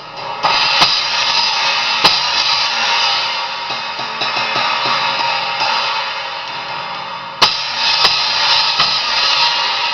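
Sabian XS20 18-inch China cymbal struck several times, ringing on loudly between hits and dying away near the end.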